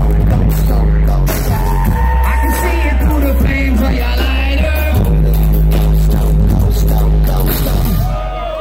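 Live concert music played loud over a venue sound system and heard from within the crowd: heavy deep bass and drum hits with a voice singing. The bass cuts out near the end.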